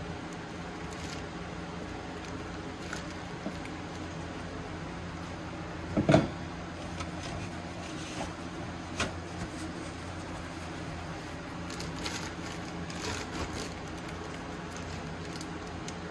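Plastic zip-top bag rustling softly, with light taps as raw chicken wing pieces are dropped into seasoned flour. One louder brief knock about six seconds in, over a steady low hum.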